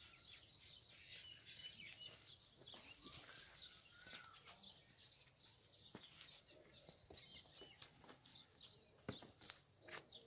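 Faint small birds chirping repeatedly in the background, with a couple of sharp clicks, one about six seconds in and one near the end.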